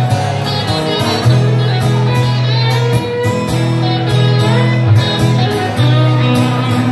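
An electric guitar and an acoustic-electric guitar playing together through a PA in an instrumental passage, with no singing; sustained low notes under shifting higher guitar notes.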